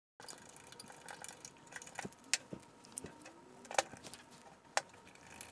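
Small metallic clicks and taps from a carburetor being turned over in the hands, its loose parts knocking against each other and the bench, with a few sharper clicks in the second half.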